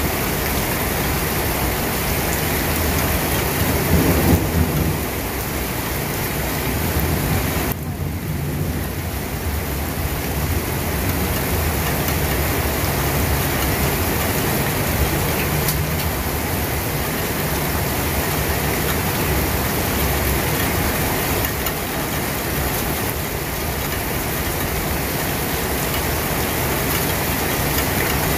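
Steady heavy rain falling, a dense even hiss, with a low rumble swelling about four seconds in.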